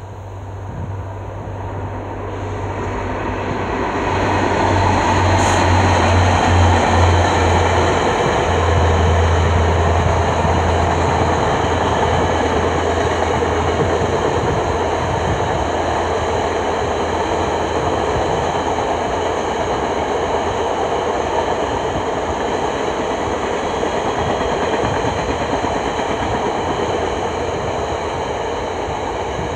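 A passenger train passing, led by VIA Rail F40PH-3D diesel-electric locomotives. Their low engine drone grows louder over the first several seconds and then dies away. It gives way to the steady rolling rumble of stainless-steel passenger cars on the rails.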